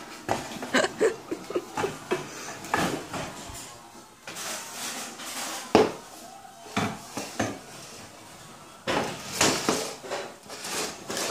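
Small wooden rocking chair knocking and clattering on the floor as a toddler pushes and rocks it: irregular clusters of knocks, with one sharp bang a little before the middle and more clattering near the end.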